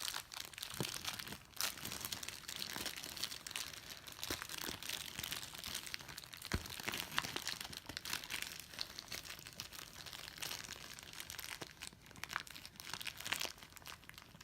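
Plastic blind-bag packaging crinkling and rustling, with scattered small clicks and taps, as hands rummage through the bag's wrapped contents.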